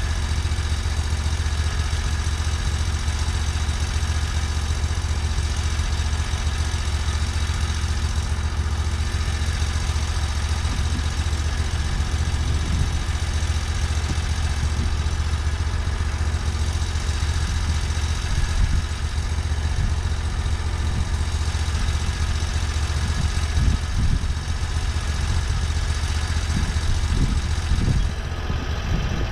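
TimberKing portable band sawmill running steadily, its engine and band blade working through a yellow pine log as a cant is milled.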